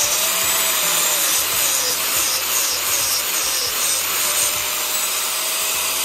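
Corded angle grinder running at speed as its cut-off disc grinds through the end of a steel Eibach coil spring, taking off half a coil. The motor whine dips and recovers in pitch under the load, over a steady grinding hiss.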